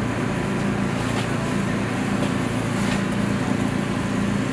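An engine running steadily, a constant low drone, with two faint clicks about a second in and near three seconds.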